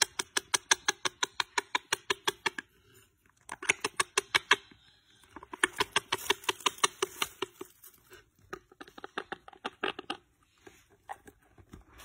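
Parakeets making rapid runs of short, sharp clicks, about seven a second, in about five bursts with brief pauses between them.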